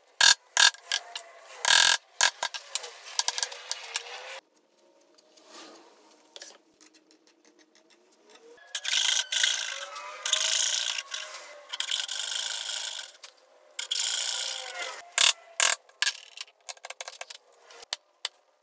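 Hand woodworking tools on softwood: sharp taps and clicks of a chisel at first, then a handsaw cutting through the wood in long rasping strokes for several seconds with a brief pause, then more chisel taps and scraping near the end.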